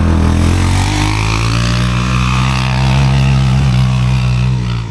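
Off-road motorcycle engine running loud and close, its pitch stepping up about half a second in, then held steady before dropping away near the end.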